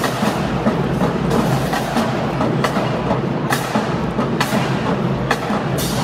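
Marching band playing a percussion-heavy number, with sharp drum and cymbal accents falling roughly once a second over a steady low brass and drum bed.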